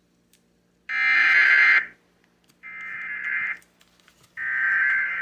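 NOAA Weather Radio SAME header: three harsh buzzing blasts of digital data, each about a second long and a second apart, from a weather radio receiver. It is the coded header that opens an Emergency Alert System alert, here a special marine warning.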